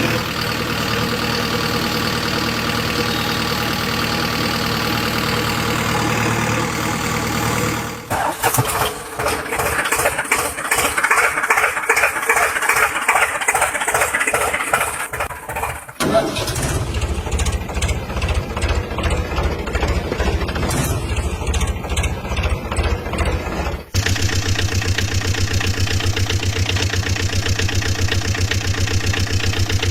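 Vehicle engines running in four back-to-back clips of about eight seconds each, with abrupt cuts between them. First a steady drone, then a fast, even chugging, then a rougher run, and last a steady low hum.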